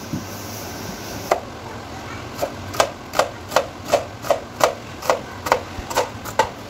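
Large kitchen knife chopping an onion into dice on a plastic cutting board: a steady run of sharp knocks, about three a second, beginning a little over a second in.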